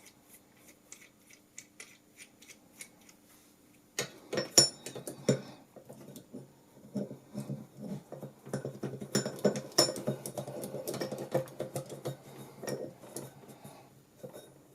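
Metal microphone stand parts being handled and screwed together: faint ticking for the first few seconds, then from about four seconds in a busy run of sharp clicks, knocks and metallic clinks.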